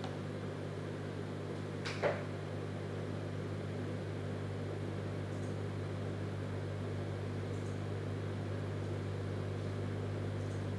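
Steady low hum of room tone, with a single short click about two seconds in.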